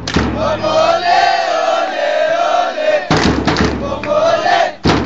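Crowd of football supporters chanting in unison in long, wavering sung phrases, with loud thumps about three seconds in and near the end.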